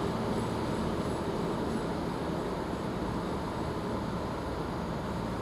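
Trains standing at the platform with their diesel engines idling: a steady low hum.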